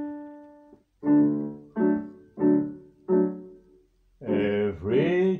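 Piano playing a slow intro: a held chord dying away, then four struck chords evenly spaced, each left to ring out. About four seconds in, a man's voice comes in singing over the piano.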